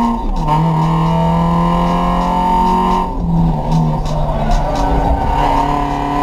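Volkswagen Gol 1.0's four-cylinder engine with a straight-through exhaust, heard from inside the cabin at full throttle. The note drops with an upshift right at the start and then climbs steadily. About three seconds in it breaks up and wavers for a couple of seconds, then steadies and pulls again.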